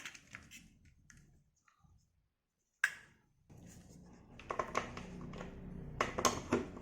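Small plastic clicks and handling noise as a USB charging cable is plugged into the charging port of a small plastic LED night light, with one sharp click a little under three seconds in and more scattered small clicks after it.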